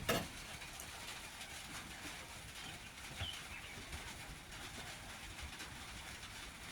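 Rain falling on a roof, a steady hiss, with a faint single bird chirp about three seconds in and a short click at the very start.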